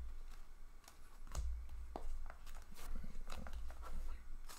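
Hockey trading cards handled on a tabletop: scattered light clicks and taps as cards are sorted and set down on a pile.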